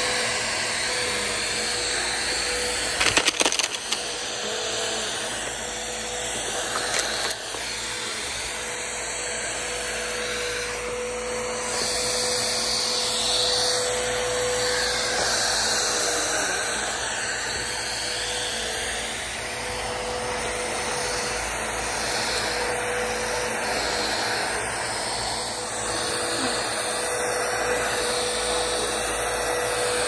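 Bissell PowerForce upright vacuum cleaner running steadily while its brush roll is pushed over grass and bare dirt, its motor giving a constant drone with a steady hum. Sharp rattling clatters come about three seconds in and again near seven seconds, as grit and small stones are sucked up.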